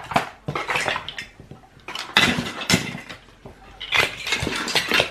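Plastic toy building blocks clattering as they are handled and knocked together, in several bouts of clicks and knocks.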